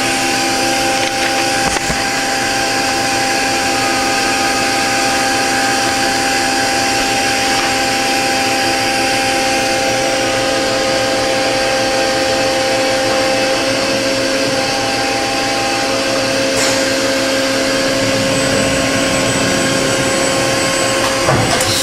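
Okuma & Howa Millac 630H CNC horizontal machining center running its warm-up cycle with the door open: spindle and axis drives whining steadily, with several steady tones that shift slightly partway through, and a short burst of noise near the end.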